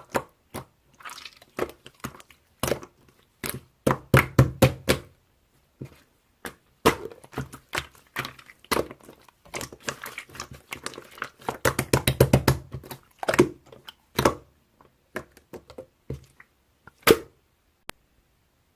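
Slime being pressed, poked and squished by hand, giving runs of sharp sticky clicks and pops, some in quick trains, with a last pop near the end.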